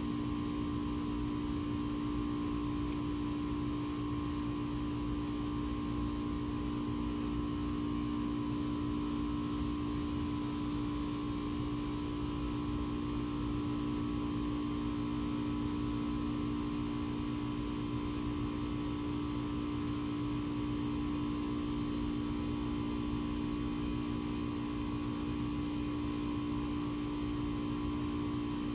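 Steady hum: several held tones over a low rumble, unchanging in level.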